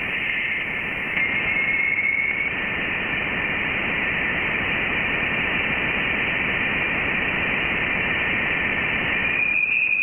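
Voyager 1 plasma wave instrument data played as sound: a steady radio-like hiss with a faint whistling tone about a second in and again near the end. The tones are vibrations of the dense interstellar plasma, their pitch set by the plasma density.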